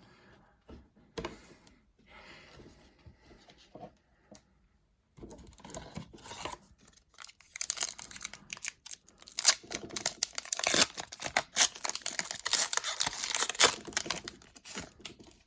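Foil wrapper of a hockey card pack being torn open and crinkled: a few soft handling clicks, then about six seconds of dense crackling rustle.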